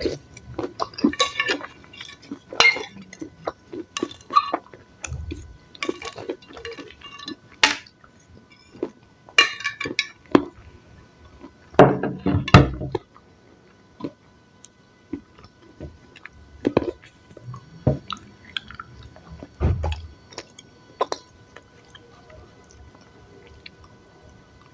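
Close-miked chewing and crunching of salad, with clinks of a utensil against a dish. The bites come in irregular clusters and thin out to faint sounds in the last few seconds.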